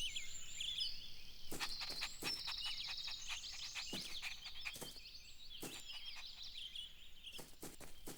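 Several birds chirping and trilling, mixing short calls with rapid trills, with a few sharp clicks scattered through.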